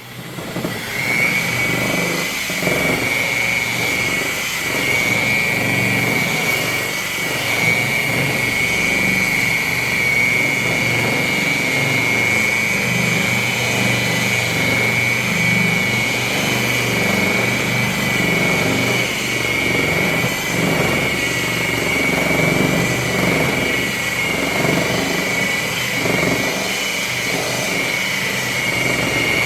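Electric buffer running steadily with a high motor whine, spinning up in the first second, its pad working polish into plastic bodywork.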